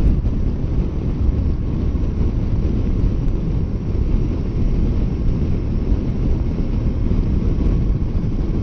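Wind rushing and buffeting over the microphone of a motorcycle riding at speed in strong crosswinds, a loud, steady low rumble of air.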